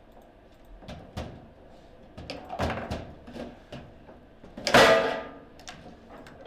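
Table football play: the ball is knocked and passed with sharp clacks of figures and rods against it, then a hard shot slams into the goal with a loud, ringing clack about five seconds in.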